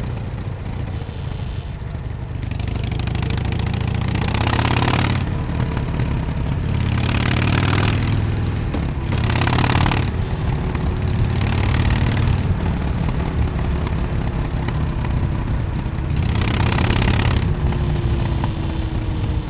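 Harley-Davidson Dyna Super Glide Custom's air-cooled V-twin exhaust running steadily under way, with about five brief swells of rushing noise over it.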